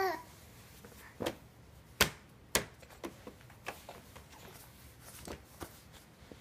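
Irregular knocks and taps on a plastic Graco high chair tray as a baby bangs her hands on it, about a dozen over several seconds, the loudest about two seconds in. A short falling baby vocalization right at the start.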